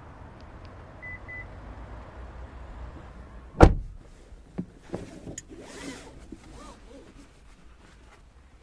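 A car door is shut with one heavy thud about three and a half seconds in, after which the outside noise drops away. Two short beeps come before it. Small clicks and rustles follow the thud.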